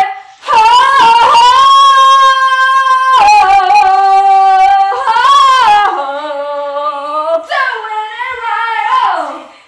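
A woman singing loudly on held vowels with no words. She sustains long notes that step from one pitch to another, then her voice slides down and trails off near the end.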